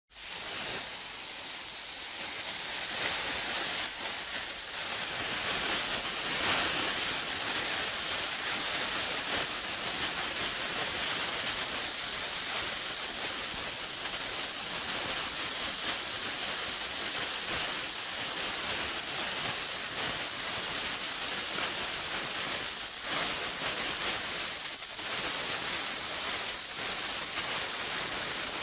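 Burning fuse hissing and fizzing steadily, starting abruptly and flickering slightly in strength as it burns.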